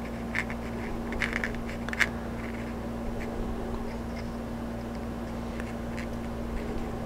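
Light clicks and small scraping from a glue bottle's nozzle and a small cockpit backrest part being handled while glue is run on, over a steady low hum. The clicks cluster in the first couple of seconds, with a few fainter ticks later.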